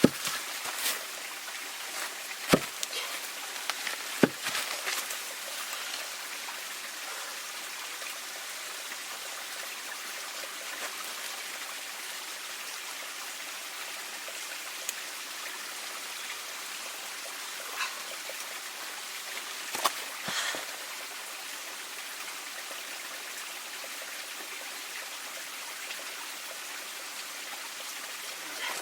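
A steady hiss of water, broken by a few sharp knocks and clicks, two loud ones in the first few seconds and more a little after the middle.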